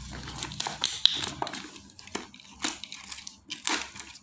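Plastic parcel wrapping and packing tape crinkling and tearing as a cardboard box is opened by hand, in irregular crackles with sharp clicks. Near the end a utility knife blade cuts through the tape on the box.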